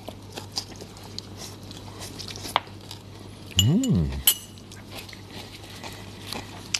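Light clinks and clicks of a fork against a salad bowl and dishes during tasting, with one short hummed 'mmm' about three and a half seconds in that rises and falls in pitch; it is the loudest sound.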